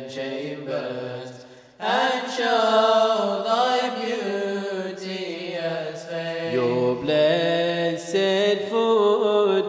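Male voices chanting a devotional qasida in English, the melody held over a low steady drone. The singing dips away just before two seconds in, then comes back fuller and louder.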